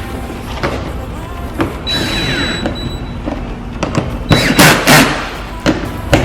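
Knocks and thumps from hands working on a car's plastic rear bumper cover, with a cluster of loud knocks about four to five seconds in.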